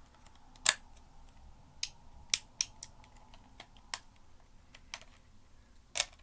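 Sharp plastic clicks and taps, about eight, spaced irregularly, from a hair dryer being handled while it is not yet running.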